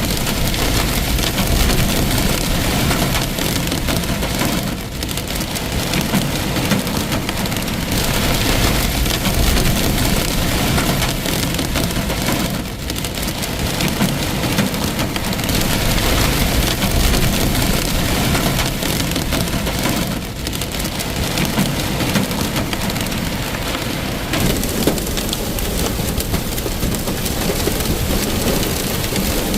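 Torrential rain pouring down as a dense, steady, loud hiss, with brief lulls about every seven or eight seconds.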